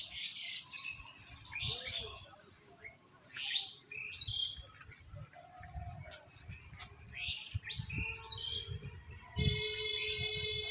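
Birds chirping in short, repeated calls, with low handling knocks and rustle, and a held buzzy tone for about a second near the end.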